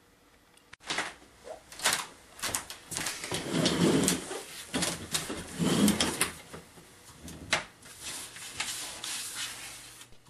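Irregular clicks, knocks and rustling of a person moving about and settling into an office chair at a desk, with a couple of heavier bumps in the middle.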